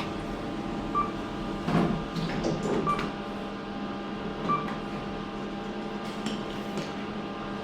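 Short high electronic beeps from a KONE lift car's push buttons, a few seconds apart, over the car's steady hum. The presses seem to go unanswered: the door-open button and most floors are locked off.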